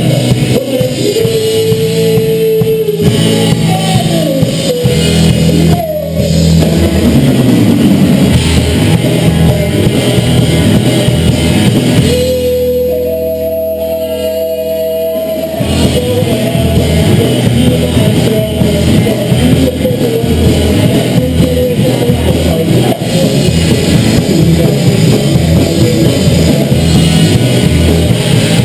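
A rock band playing live: guitars, drum kit and a lead singer. About halfway through, the drums and low end drop out for a few seconds under long held notes, then the full band comes back in.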